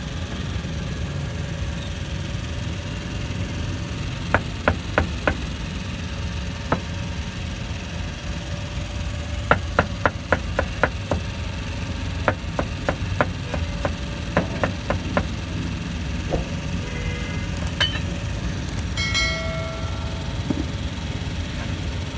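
Steady low rumble of engines and traffic with runs of sharp knocking strikes, four quick ones about four seconds in and a longer run of a dozen or so from about nine to fifteen seconds in. A short pitched tone sounds near the end.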